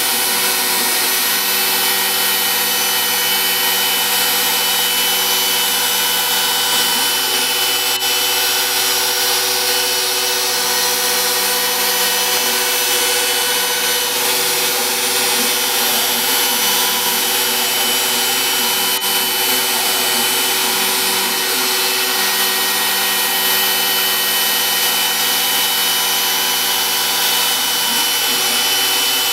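Router spindle on a home-built CNC router running steadily while the bit cuts a shallow pass through MDF: a constant whine over a steady hiss, with faint tones sliding up and down underneath.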